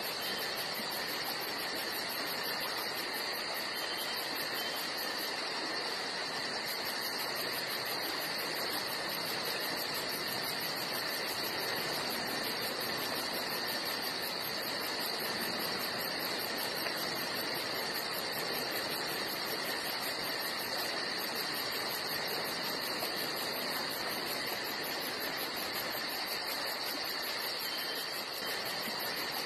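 Steady insect chorus, with a fast, even high trill over an unbroken hiss.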